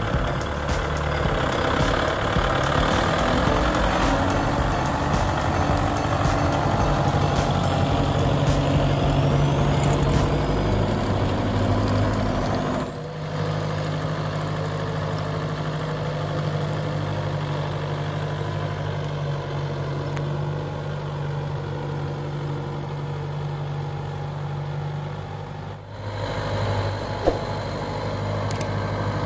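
Kubota MU5501's four-cylinder diesel engine running steadily under load while the tractor works the field with a rear-mounted rotary tiller. The sound dips briefly twice, about 13 and 26 seconds in.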